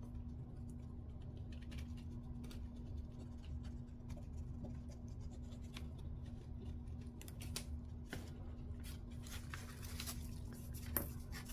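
Hands working paper and craft materials on a tabletop: scattered light clicks, taps and scratches that grow busier in the second half, over a steady low hum.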